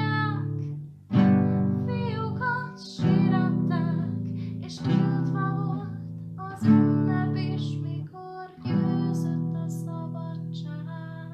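Acoustic guitar strumming slow chords, one about every two seconds, ending on a last chord left to ring and fade out.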